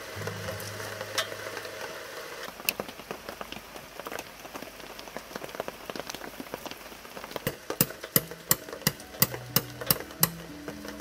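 Steady rain falling, then near the end a quick run of about nine sharp knocks, about three a second: a metal tent peg being hammered into gravel ground.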